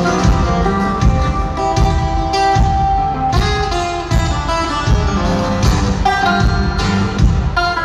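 Loud live concert music with guitars, heard from the seats of an arena.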